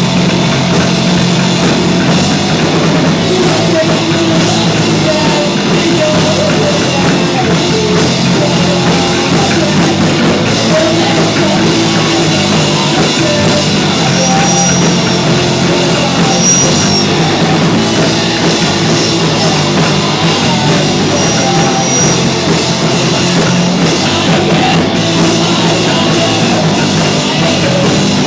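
A rock band playing loudly live, with a drum kit and amplified instruments.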